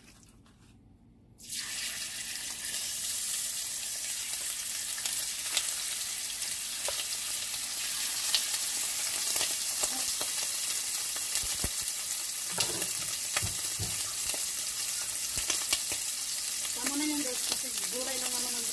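Raw chicken wings sizzling in hot oil in a frying pan, the sizzle starting suddenly about a second and a half in as they go into the pan, then frying steadily with scattered small pops and crackles.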